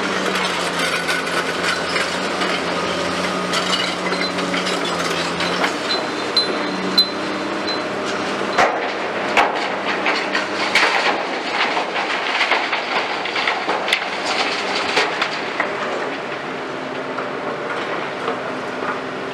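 Hitachi 210 tracked excavator running, its engine holding a steady hum as the loaded bucket of concrete rubble is lifted and swung. About halfway through, the rubble is dumped into the steel body of a tipper truck, giving a quick run of bangs and clatters.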